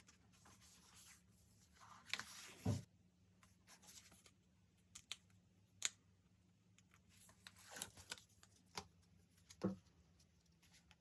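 Paper and stickers being handled for diary decorating: scattered soft rustles, taps and short crinkly bursts, loudest two to three seconds in and again near the end, with a few dull taps on the desk.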